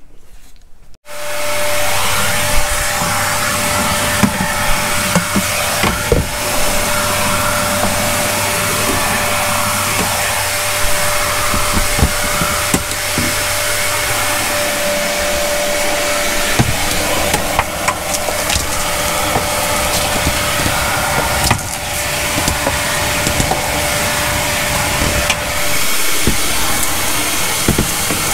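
Vacuum cleaner switched on about a second in and running steadily, its hose sucking dust out of the wooden motorhome lockers. Frequent short knocks come from the nozzle bumping against the locker sides.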